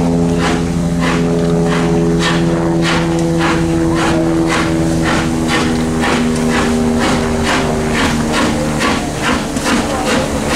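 Steam locomotive working hard, its exhaust beating at about two chuffs a second and quickening slightly as it picks up speed.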